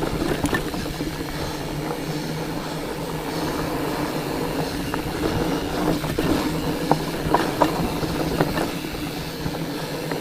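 Fatback Skookum fat bike rolling over rocky, rooty singletrack: a steady hum from the wide knobby tires with the rattle of the bike and chain. Sharp clicks and knocks come more often in the second half as it rides over rocks.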